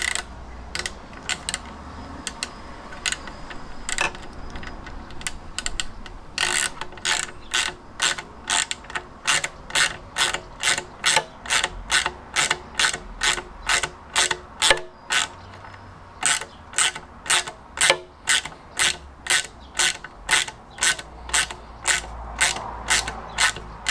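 Ratchet wrench clicking on its back-strokes while undoing the 8mm nuts on a Fiat 500 engine's thermostat housing; the nuts are stiff with black paint. A few scattered clicks at first, then a steady run of strokes at about two or three a second.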